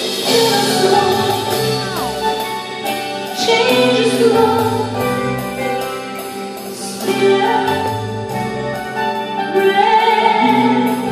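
A woman singing a slow worship song into a microphone with a live band behind her, long held notes over steady chords.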